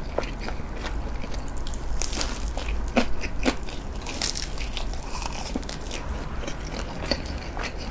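Close-miked eating: chopsticks bringing food to the mouth, then a bite into a nori-wrapped rice ball and chewing, heard as irregular short sharp clicks, busiest in the middle.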